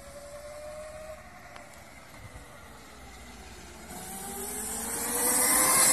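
72 V, 3000 W Kunray brushless motor of an electric go-kart whining as the kart accelerates at full throttle, rising in pitch. The whine grows louder from about two-thirds of the way through, with a rush of tyre and wind noise peaking near the end as the kart passes close by.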